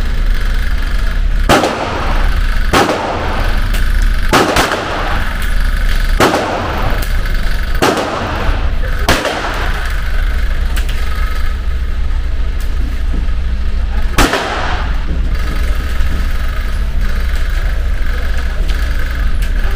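Handgun shots fired one at a time at irregular intervals, about seven in all, each followed by a short echo off the indoor range, over a steady low hum.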